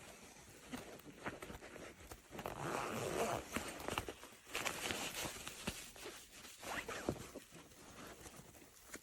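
Zipper on a small fabric cabin backpack being pulled in several irregular strokes, with the rustle and scrape of the bag being handled. The strongest zip strokes come about three and five seconds in.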